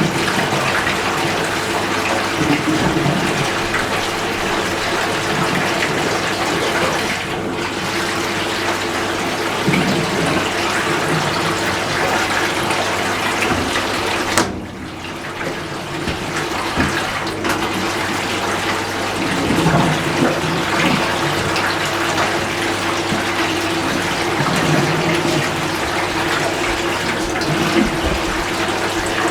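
Water rushing steadily into a Fisher & Paykel MW512 washing machine, with a steady low hum underneath and a brief dip about halfway through.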